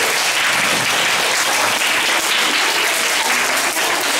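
Audience applauding steadily, a dense, even clapping from many hands.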